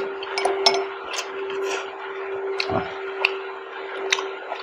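Close-miked chewing of instant noodles: a run of sharp wet mouth clicks, with light clinks of a metal fork in a glass bowl, over a steady hum.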